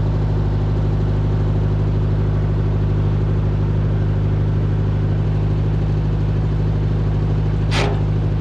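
An engine idling steadily at a constant speed. A single brief sharp click or knock is heard near the end.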